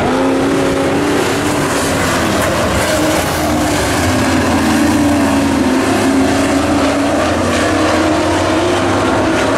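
Dirt-track race trucks' engines running hard around the oval, their pitch rising and falling as they go through the turns.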